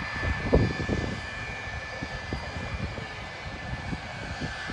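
Far East Air Transport MD-82's rear-mounted Pratt & Whitney JT8D turbofans running with a steady high whine over a low rumble. Irregular low thumps, the strongest about half a second in.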